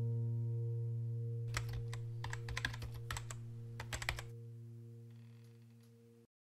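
Computer keyboard typing sound effect: a quick run of key clicks lasting about three seconds, over the last held low note of the background music fading out. Everything cuts off abruptly near the end.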